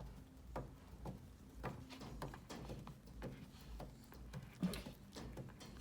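Faint scuffling and scattered light clicks and taps from a puppy and a pet raccoon playing together.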